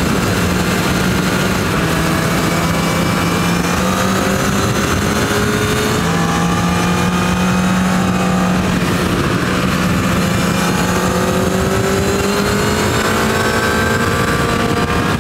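Honda CB1000R's inline-four engine pulling under way through its stock Euro 4 exhaust, with wind and road noise over the microphone. The engine note climbs slowly, drops back about six seconds in and again near ten seconds, then climbs again.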